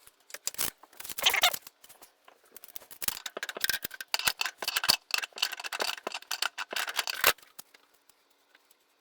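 Rapid, irregular metallic clicking and clattering from hand tools and a cut copper line being worked on. It is densest in the middle and stops abruptly a little after seven seconds in.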